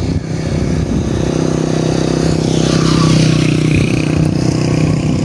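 A motor vehicle's engine running as it passes, a steady drone that grows louder to its peak about three seconds in and then eases slightly.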